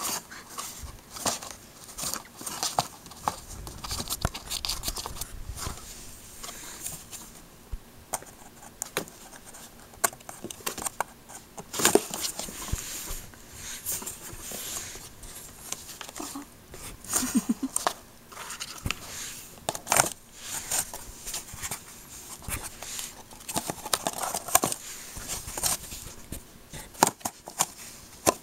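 A cat scrabbling inside a cardboard box: irregular scratching, scraping and sharp knocks of claws and paws on the cardboard as it swats at a toy through a gap in the box.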